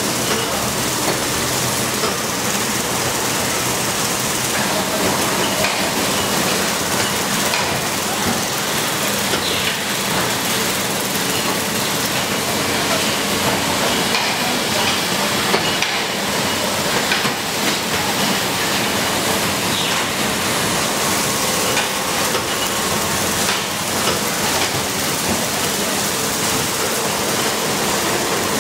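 Steady hiss and hum of factory machinery on a motor stator production line, with faint steady tones and occasional light clicks.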